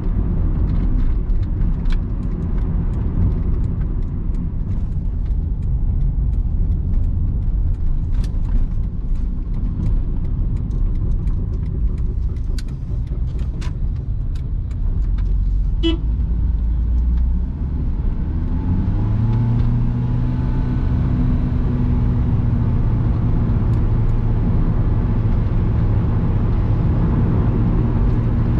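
Cabin sound of a 2001 Honda Capa's 1.5-litre engine with CVT automatic: low road and engine rumble with scattered sharp clicks and creaks from the interior, and a brief horn toot about halfway through. Then the engine note rises and holds a steady drone as the car accelerates.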